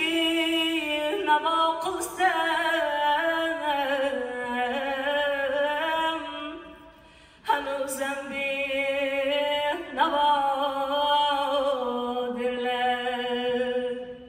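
A woman singing an Uzbek song solo, without instruments: long, ornamented held notes with vibrato, in three phrases, with a short pause about seven seconds in and a brief breath near ten seconds.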